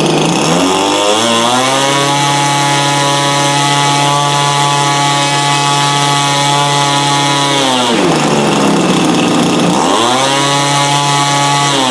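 Gas-powered RC airplane engine with its propeller, revving up from low speed in the first second or so and holding a steady high speed for about six seconds. It then drops back, revs up again about two seconds later and holds, as the throttle is worked from the radio transmitter.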